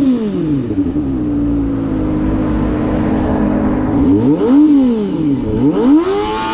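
Kawasaki ZX-25R's 250 cc inline-four engine revving through an SC-Project exhaust. A rev falls away at the start, then the engine holds a steady high note for a couple of seconds. Two more revs follow, the last one higher and louder near the end.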